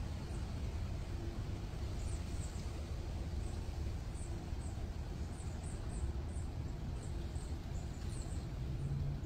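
Outdoor background noise: a steady low rumble with faint, short high chirps scattered through it every second or so, like small birds.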